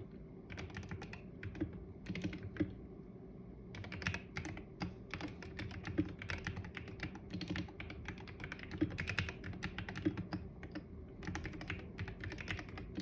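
Computer keyboard being typed on: quick runs of key clicks, with a brief pause about three seconds in, over a steady low hum.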